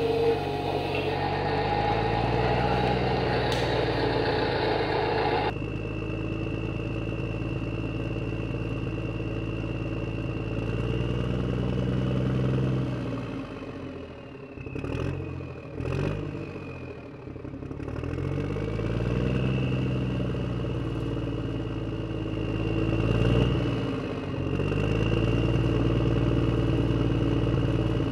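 Huina 1583 RC wheel loader working: its motor sound rises and falls in pitch several times, over a thin high whine. In the first few seconds plastic toy blocks clatter as they slide out of the bucket, and there are two sharp knocks about halfway through.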